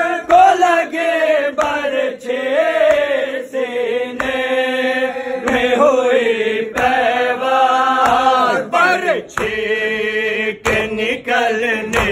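Men chanting an Urdu nauha, a Shia lament for Karbala, in a drawn-out melodic line. A few sharp slaps of hands on chests (matam) cut in.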